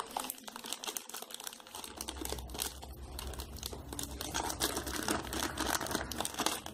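Irregular crinkling and small clicks and taps of plastic packaging being handled: a phone's accessory box, plastic bag and hard plastic earphone case turned over in the hands.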